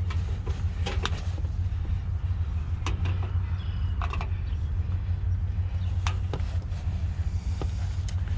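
Vehicle engine idling with a steady low rumble, with several sharp clicks and knocks over it.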